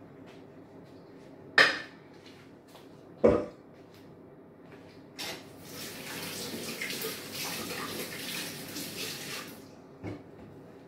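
Two sharp clatters of a metal pan being handled on the counter, then a kitchen tap runs for about four seconds, with a few small clinks near the end.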